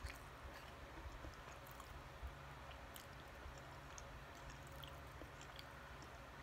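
Faint close-miked mouth sounds of chewing siomai: a few soft, wet clicks over a low steady hum.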